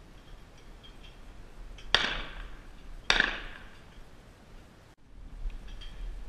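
Two shotgun shots about a second apart, each a sharp report with a short decaying tail.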